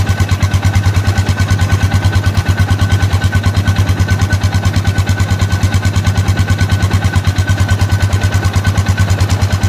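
Side-by-side utility vehicle's engine idling with an even, rapid low pulsing, a thin steady whine above it.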